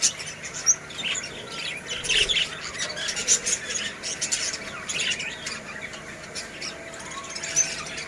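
Flock of budgerigars chattering: many short, overlapping chirps and squawks.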